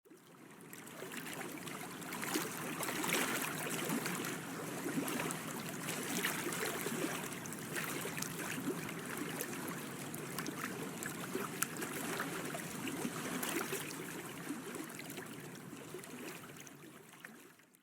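Water running and trickling, a steady rush with many small splashes. It fades in at the start and fades out near the end.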